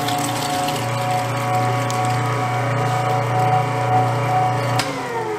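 Hobart half-horsepower industrial meat grinder's electric motor running with a steady hum while coarse-grinding venison. Near the end there is a click, and the motor's pitch then falls as it winds down.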